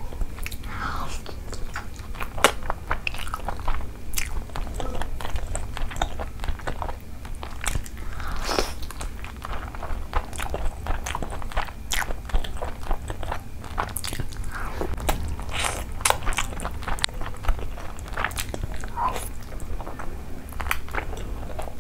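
Close-miked eating: biting and chewing mouthfuls of chicken curry and rice eaten by hand, a steady run of irregular sharp wet clicks and crunches from the mouth.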